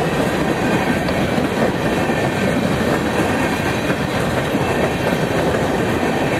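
Empty coal gondolas of a freight train rolling past close by: a steady rumble and clatter of wheels on the rails.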